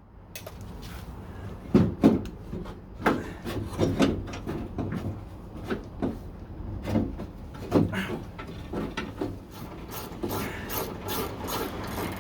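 Irregular knocks, clacks and scraping of metal door hardware as a window track is worked loose inside a 1969 Corvette door, with strikes roughly once a second that come thicker near the end.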